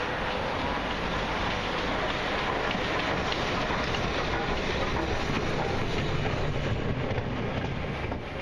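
LMS Class 5 steam locomotive No. 44932 hauling carriages past: a steady rumble of the engine and coaches running over the rails.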